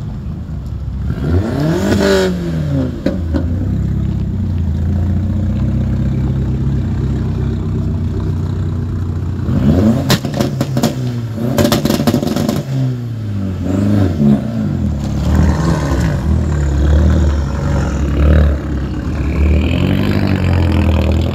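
Modified Skoda Octavias driving slowly past on gravel, their engines revving up and down several times over a steady low rumble. About halfway through comes a quick run of sharp cracks.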